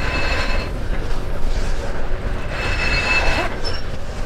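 Rope halyard hauled through the wooden blocks of a sailing ship's rigging, the blocks squealing twice about two and a half seconds apart over a steady low rumble.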